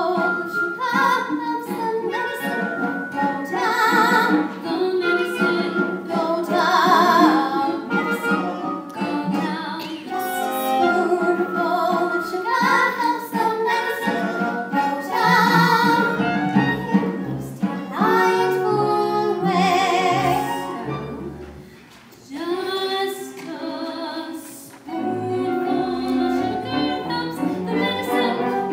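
Young stage-musical cast singing a song, with accompaniment from a live pit band; the singing drops away briefly about three quarters of the way through, then picks up again.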